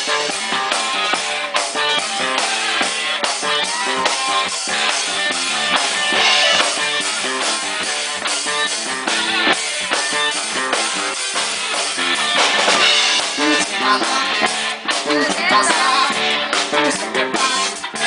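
Live rock band playing an instrumental passage: drum kit keeping a steady beat with rimshots, with electric guitar and bass.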